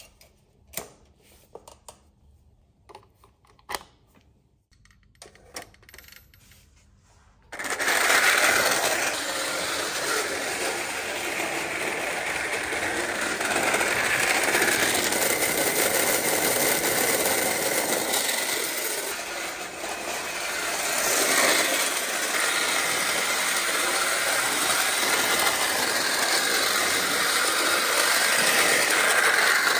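Sharp metal clicks as tin track sections are fitted together, then about seven seconds in a restored 1920s American Flyer 1218 O gauge electric locomotive starts up and runs steadily around the metal track, its motor and wheels making a loud mechanical running noise that swells a little at moments.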